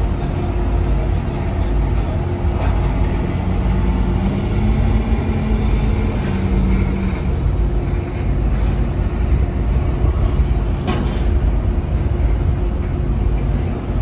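Large engine machinery running steadily: a deep rumble with a constant hum. A second tone rises slightly and holds for a few seconds in the middle, and there are two sharp clicks.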